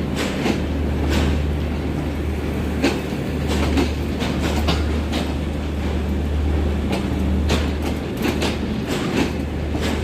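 Train running on the rails: a steady low rumble with many sharp clicks and knocks of wheels over rail joints.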